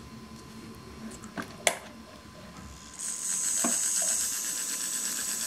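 Two sharp clicks of connector plugs being pushed in, then about three seconds in a small fischertechnik electric motor starts running with a steady high-pitched whir. It runs normally when fed straight from a power controller, which points the fault at its wiring.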